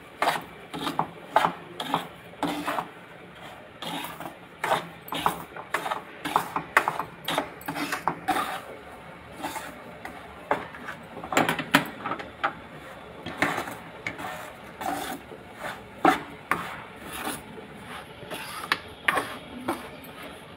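Metal slotted spoon stirring and scraping semolina around a kadhai as it roasts in ghee, in repeated irregular strokes about one or two a second.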